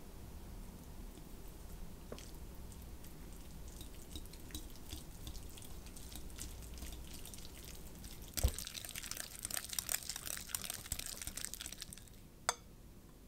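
A wire whisk working softened cream cheese in a glass bowl. There are soft wet ticks at first, then, about eight seconds in, a bump and fast clicking and scraping of the whisk against the glass. It ends with one sharp click.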